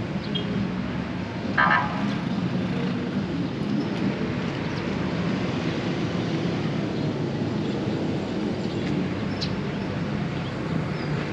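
Steady road traffic noise with an engine hum, and a short horn toot about a second and a half in.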